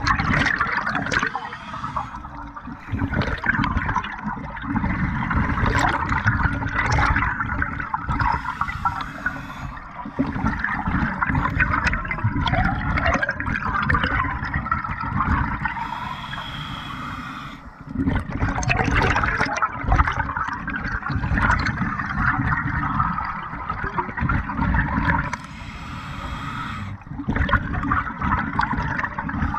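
Scuba regulator breathing heard underwater: long stretches of exhaled bubbles rushing and gurgling, broken three times by a shorter, quieter spell with a thin hiss as the diver breathes in.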